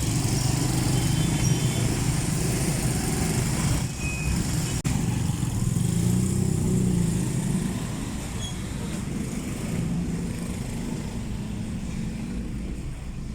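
Steady low engine and road noise of a motor vehicle.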